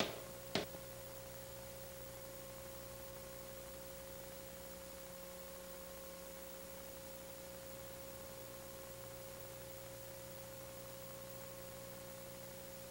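Steady electrical hum and hiss, the noise floor of an old videotape soundtrack, with one sharp tap just after the start.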